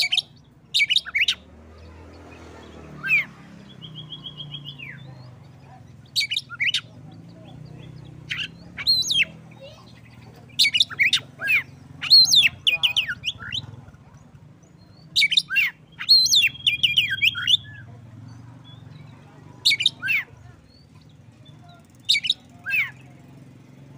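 Male oriental magpie-robin (kacer) singing: loud short phrases of sharp gliding whistles and chattering notes every second or two, with a couple of steady trilled notes, over a faint low hum.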